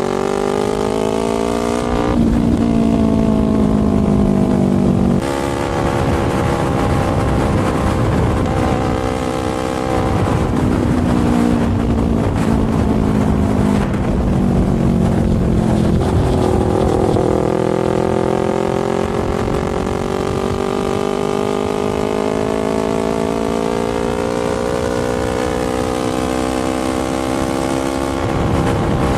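Motorcycle engine heard while riding: the revs climb, drop sharply at a gear change about two seconds in, fall away for several seconds in the middle, then climb steadily again through the second half, over steady wind rush.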